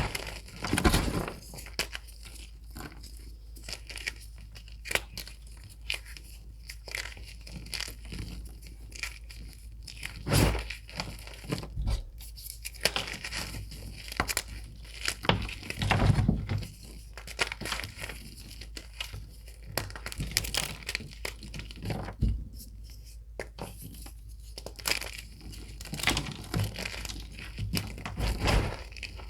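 Reformed gym chalk being crushed and crumbled, with irregular crunches and softer crumbling between them.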